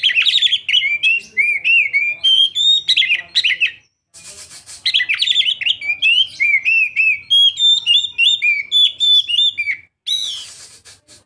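Young Oriental magpie-robin singing: two long phrases of rapid, varied whistled notes with a short break between them, then a brief harsher note near the end.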